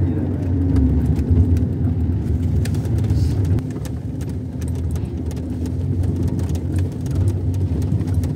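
A car running and rolling along, heard from inside the cabin: a steady low engine and road rumble with a faint hum, and frequent small clicks and knocks as it drives over a rough gravel track.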